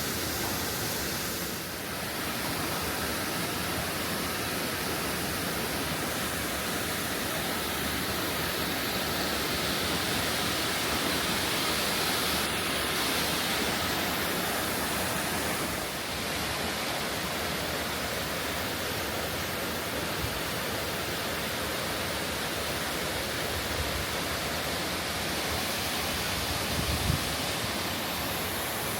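Waterfall's falling water rushing steadily, with a brief sharp knock near the end.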